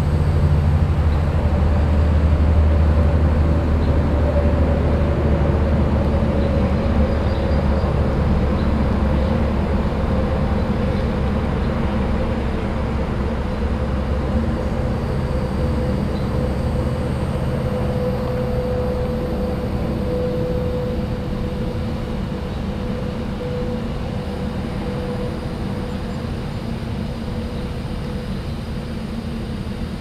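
Steady low rumble of heavy motor traffic that slowly fades over the stretch, with a faint steady hum above it.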